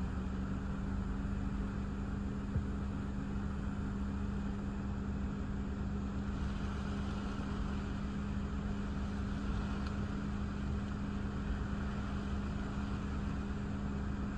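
A steady low hum from the car, over a constant wash of wind and rain noise with a low rumble.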